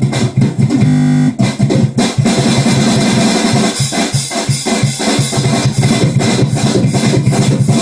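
Acoustic drum kit in a heavy-metal drum solo: fast, dense hits on the drums, with cymbals ringing in a continuous wash from about two seconds in.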